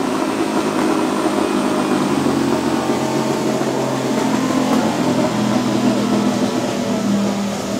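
Turbocharged 5.3-litre LS V8 running at a steady speed on a chassis dyno, a constant drone that neither rises nor falls.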